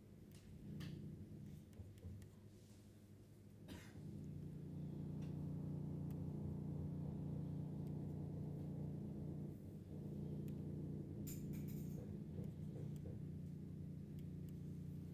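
Steady low hum, louder from about four seconds in, with a few faint clicks and taps of a stylus writing on a tablet.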